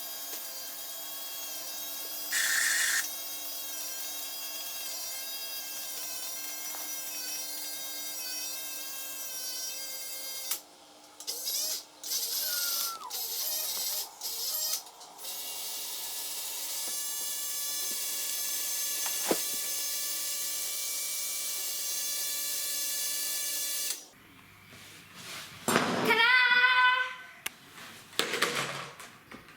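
Remote-control tower crane's small electric motors whining steadily in long runs. In the middle they cut in and out in short bursts. A voice is heard briefly near the end.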